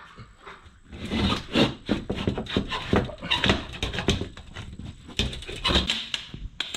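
Rapid, irregular rustling, scraping and knocking as air filters are pulled out of wall vents by hand.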